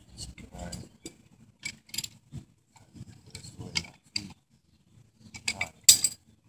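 Short, irregular metallic clicks and rattles as an Echo chainsaw's chain and bar are handled during refitting, with one loud metal clank about six seconds in as a wrench is set down on the other tools.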